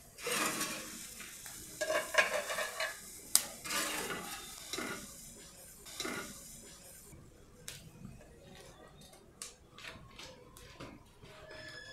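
A spatula scraping across a clay comal, scooping off roasted tomatillos and poblano chiles into a clay dish: several scraping strokes in the first half, then lighter clinks and taps.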